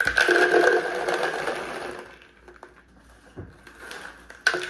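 Dry cereal pouring out of a pouch into a plastic jar, a dense rattle of pieces hitting the plastic for about two seconds, then a few light clicks, and pouring starts again near the end.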